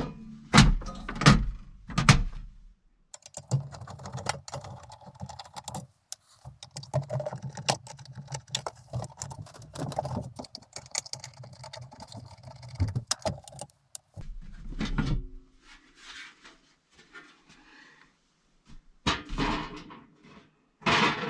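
Steel front cover of a home electrical breaker panel being taken off: knocks as the panel door is handled, a stretch of scraping and clicking as the cover screws are worked out with a screwdriver, then clunks of the metal cover coming free.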